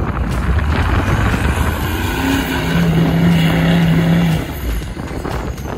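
A Chevy K5 Blazer's engine revving hard under load as the truck plows through deep snow. The engine holds a steady high note in the middle, then eases off near the end.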